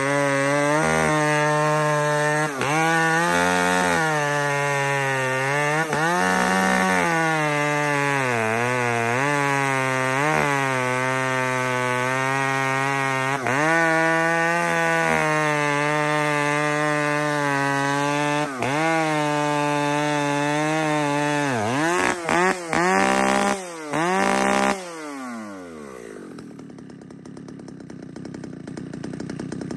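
Husqvarna chainsaw at full throttle cutting through a large stump, the engine pitch sagging and recovering several times as it loads up in the cut. About 22 seconds in it is blipped a few times, then its pitch falls away and it settles to a quieter idle.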